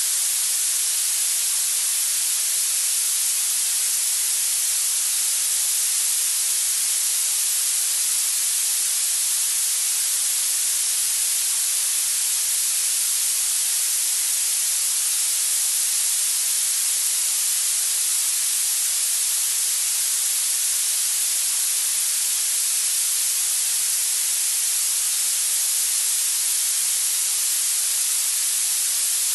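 Steady, unchanging hiss of synthetic masking noise, weighted toward the high pitches, played as tinnitus retraining sound therapy.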